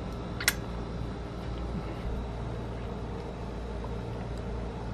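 A steady low background hum, with one short, sharp click about half a second in.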